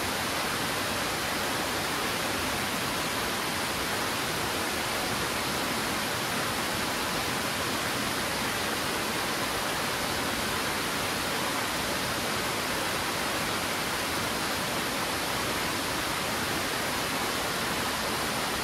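Twin waterfalls pouring down a stepped rock face: a steady, even rush of falling water.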